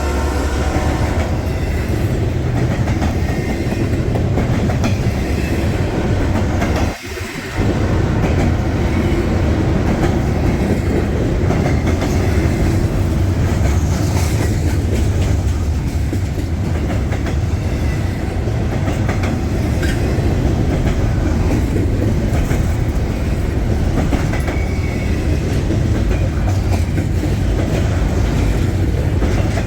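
Freight train passing close by: steady heavy rumble with wheels clattering over the rail joints. The last of its horn dies away at the very start, and the sound drops out briefly about seven seconds in.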